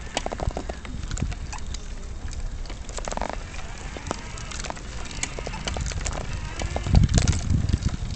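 Wheelchair rolling over a paving-stone path: the frame and fittings rattle and click over the joints between the stones, with a louder low rumble of jolts near the end.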